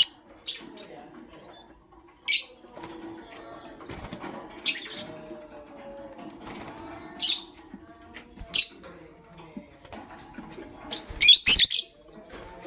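Lovebird giving short, sharp, high chirps every couple of seconds, ending in a quick loud burst of several chirps near the end.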